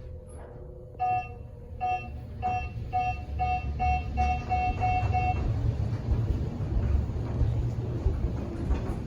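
Otis high-rise elevator car in motion: about ten short electronic floor-passing beeps that come quicker and quicker as the car picks up speed, then stop. Under them is a low rumble of the car travelling in the hoistway, which grows and holds steady.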